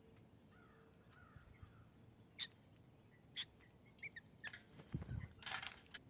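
Blue jay at a can of sunflower seeds: a few sharp taps as it works the seeds, then a low thump and a short rushing burst near the end as it leaves the feeder. A distant bird gives a faint thin whistle about a second in.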